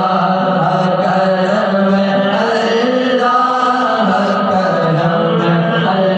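Men's voices chanting a devotional naat, with long held sung notes that rise and fall slowly and do not break for pauses.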